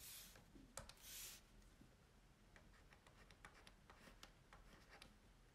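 Faint stylus strokes and light taps on a tablet's writing surface, with two short soft scratchy strokes in the first second and a half, then scattered small ticks.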